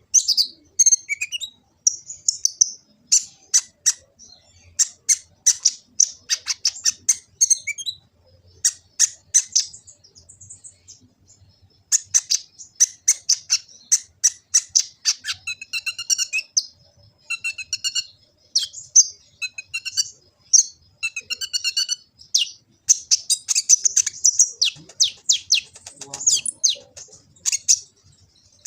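Kolibri ninja, a sunbird, singing a fast, varied song of high, sharp chirps and trills, breaking off for a few seconds about a third of the way in before starting again.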